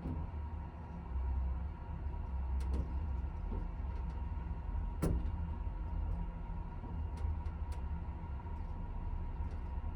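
Toshiba Elemate Cerebrum VF elevator running, a steady low rumble with a constant hum, a few light clicks and one sharp click about five seconds in.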